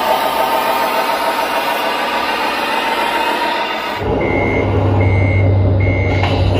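Simulated diesel engine noise from RC construction models' sound modules. About four seconds in it changes to a steady low engine drone with a reversing beeper beeping three times, under a second apart.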